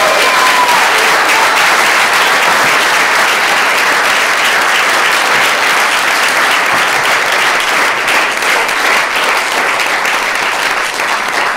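Small audience in a room applauding steadily, the clapping easing slightly toward the end.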